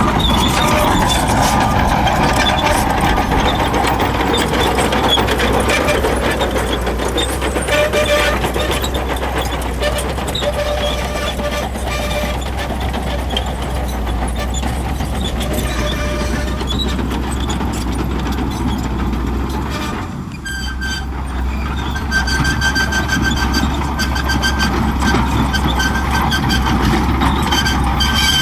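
Shantui bulldozer's diesel engine running steadily under load, with the steel tracks clanking and giving short high squeaks over and over. The engine note drops briefly about two-thirds of the way in.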